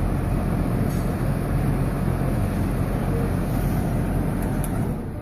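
A six-blade whole house fan running: a steady rush of moving air over a low hum.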